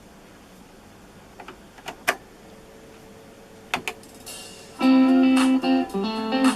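A few short clicks over low hiss, then music starts playing through the Aiwa CDS-A190 boombox's speakers about five seconds in, with held guitar-like notes.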